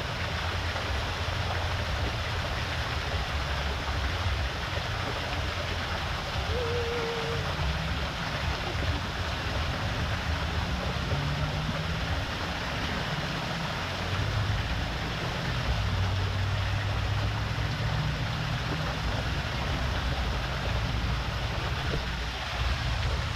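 Water from an artificial rock waterfall splashing steadily into a small pool, with a steady low rumble beneath it.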